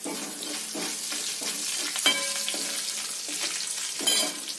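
Curry leaves and dried red chillies sizzling in hot oil in a metal kadai as a steel spoon stirs them. The spoon knocks against the pan with a ringing clink about two seconds in and again near the end.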